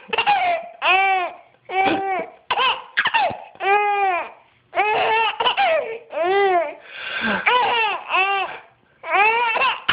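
Baby laughing: a string of short, high squealing laughs, each rising and falling in pitch, one or two a second.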